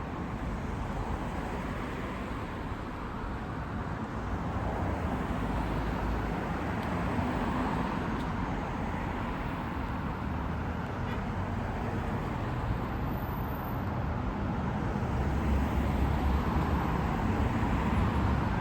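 Road traffic: a steady wash of passing cars, with a low rumble that swells as vehicles go by, once around the middle and again near the end.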